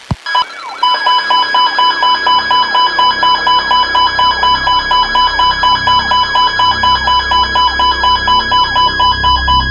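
Emergency weather alert alarm: after a few short blips, a loud electronic beep starts about a second in and pulses rapidly and evenly, about four beeps a second, signalling an incoming warning.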